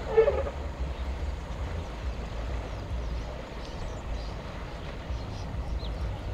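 A short pitched elephant call right at the start, over a steady low rumble, with a few faint high bird chirps later on.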